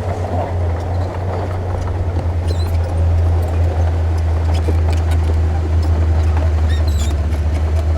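Heavy diesel engine of earthmoving equipment running under steady load, a deep continuous drone that pulses slightly, with faint scattered clicks and knocks over it.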